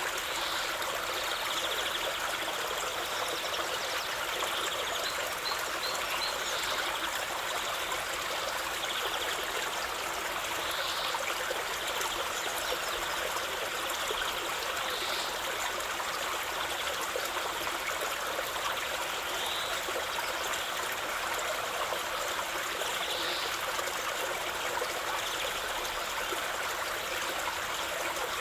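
Running water trickling and splashing steadily, with a faint brief higher note every few seconds.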